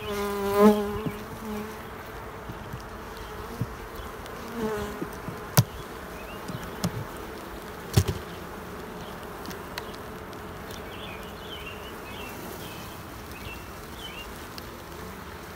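Honeybees buzzing steadily around an open hive full of frames, with two sharp knocks about five and a half and eight seconds in.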